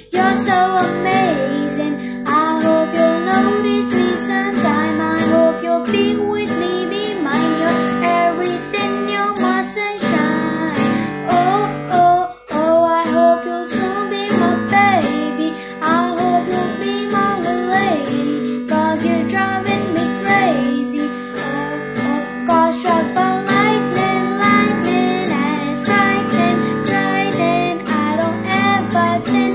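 Acoustic guitar strummed in a steady rhythm, with a girl's singing voice over it.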